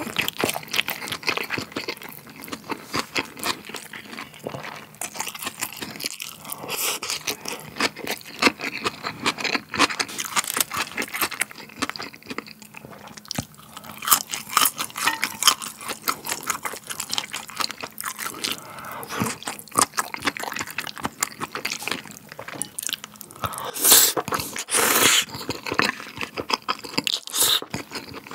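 Close-miked chewing and crunching of crisp-fried pork intestines (dorae-chang), an irregular run of crackly crunches, with a couple of louder bursts near the end.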